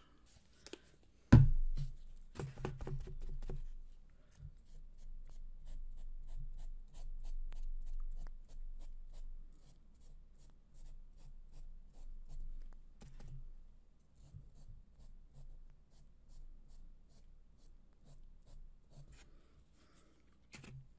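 Stencil brush dabbing white paint through a stencil onto a wooden block: a long run of soft, quick, repeated taps. About a second in there is a single loud knock, the loudest sound here, with a few lighter knocks just after it.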